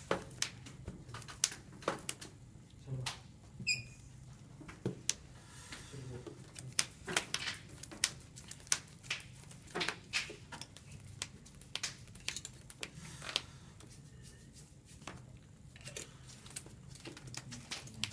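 Yu-Gi-Oh trading cards being handled and laid down on rubber playmats: irregular sharp clicks and taps, sometimes several in a second, over a low room hum.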